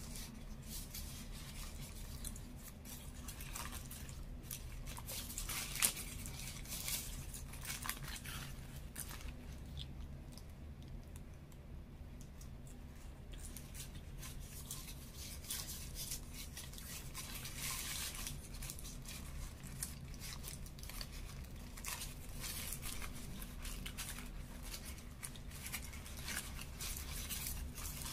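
Close-up eating sounds: chewing a chicken burger while its paper wrapper crinkles and rustles in the hands, in a run of small crackles with a sharper one about six seconds in. A steady low hum sits underneath.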